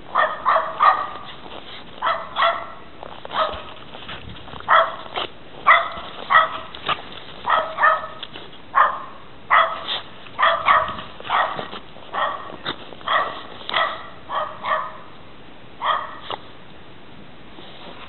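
A dog barking in many short, high-pitched yips, singly and in quick runs, which stop about two seconds before the end.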